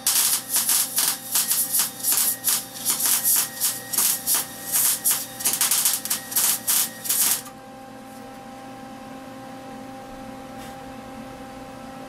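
MIG welding arc crackling and sputtering in a rapid run of pulses as a bead is laid on steel under argon/CO2 shielding gas, stopping abruptly about seven seconds in. A steady low hum stays underneath throughout.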